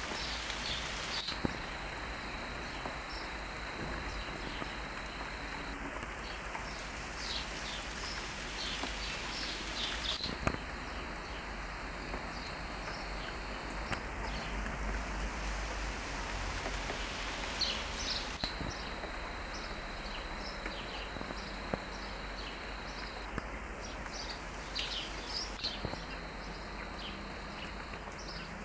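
Steady rain falling on garden foliage and ground, with birds chirping and several high trills of a few seconds each.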